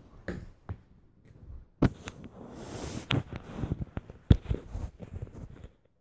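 Handling noise from a phone recording up close: fabric rustling against the microphone and several sharp knocks and clicks, the loudest about four seconds in.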